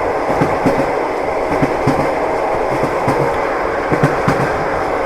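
A train running on the rails: a steady rumble with irregular clattering knocks from the wheels on the track.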